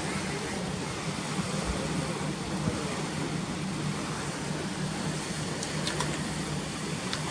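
Water pouring through the sluices of a canal lock gate and churning into the lock chamber: a steady, unbroken rushing.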